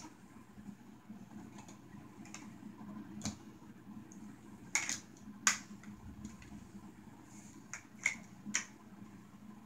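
Large plastic toy building blocks clicking and knocking together as a toddler presses them onto a row of blocks: irregular sharp clicks, the loudest a pair about five seconds in.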